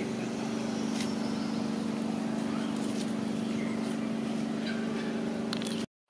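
A steady motor drone holding one constant pitch, with faint clicks over it, cutting off abruptly near the end.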